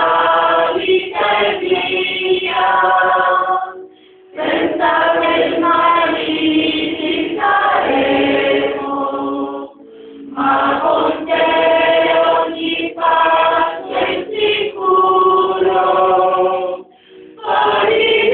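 A group of men and women singing a hymn together, in sung phrases broken by short pauses about every six seconds.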